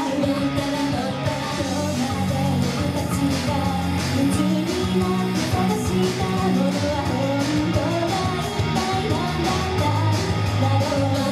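Female idol group singing live into handheld microphones over a loud pop-rock backing track with guitar and a steady beat.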